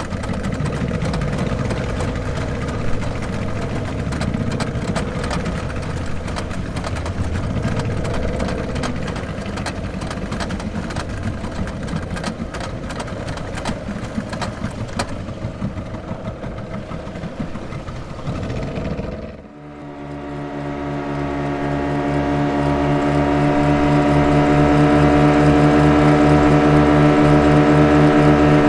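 Speedboat engine running with a rough, noisy rumble. About two-thirds of the way through it cuts to a steadier, evenly pitched engine hum that fades in and grows louder.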